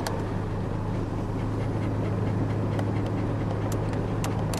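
A dog panting inside a moving car's cabin, over the steady low drone of road and engine noise.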